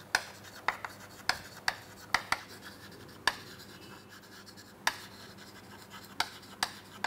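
Chalk tapping and scratching on a chalkboard as words are written: a string of sharp taps at uneven intervals with faint scraping between them.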